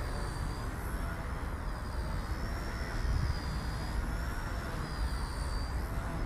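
XK K110S mini RC helicopter in flight, its brushless motor and rotor making a thin high whine that keeps swinging up and down in pitch as it is flown, over a low steady rumble.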